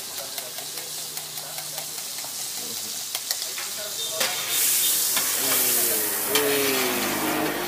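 Roti John frying on a hot griddle: steady sizzling with sharp metal ticks of a spatula, about two or three a second. About four and a half seconds in, the sizzle swells into a much louder hiss.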